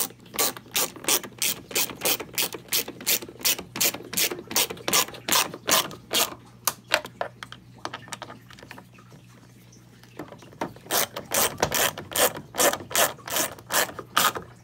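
Ratchet wrench clicking rapidly, about four clicks a second, as it runs a taillight assembly's mounting bolt back in. The clicking pauses for a couple of seconds past the middle, then starts again.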